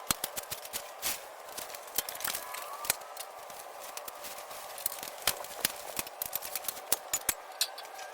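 Irregular sharp clicks and taps, several a second and uneven in loudness, over a steady hiss.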